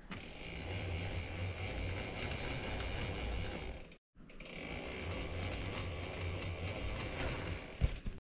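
Mountain bike drivetrain being cranked backward by hand while the chain is lubed: the chain runs through the cassette and derailleur with a steady ratcheting whir from the rear freehub. It breaks off and restarts about four seconds in, and there is a short knock near the end.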